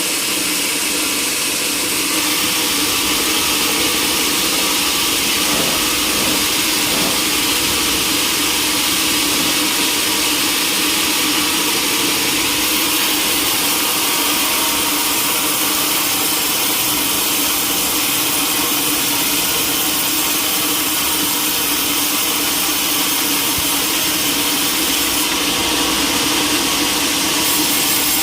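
Sawmill machinery running steadily: a continuous loud machine noise with a steady hum, unchanging through the whole stretch.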